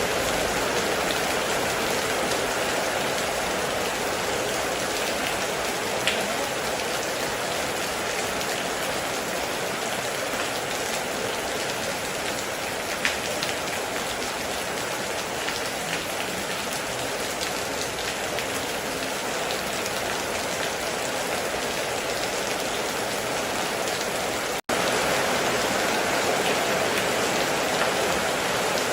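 Heavy rain falling steadily, a dense even hiss with the odd single louder drop standing out. The sound cuts out for an instant about 25 seconds in.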